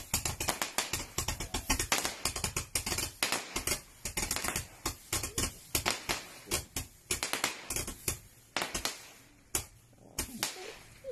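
Fireworks going off in rapid succession: a dense run of sharp crackling pops that thins out after about four seconds into scattered single bangs.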